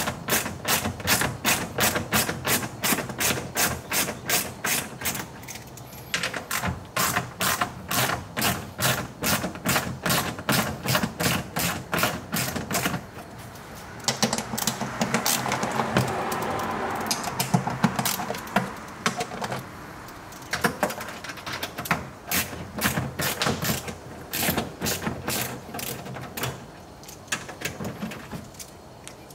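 Socket ratchet clicking quickly, about four or five clicks a second, in runs with short pauses, as a 10 mm bolt is unscrewed. In the middle there is a few seconds of duller rubbing noise.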